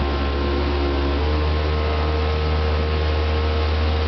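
Motorboat engine running steadily at towing speed, with rushing water and wind noise over a strong low hum; its tone shifts slightly about a second in.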